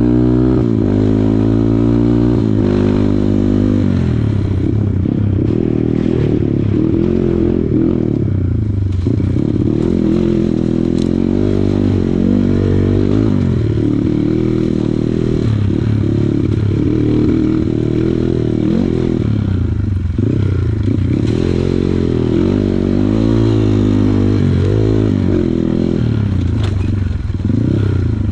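Kawasaki KLX140 dirt bike's single-cylinder four-stroke engine, its revs rising and falling again and again as it is throttled on and off, with scraping and clattering mixed in.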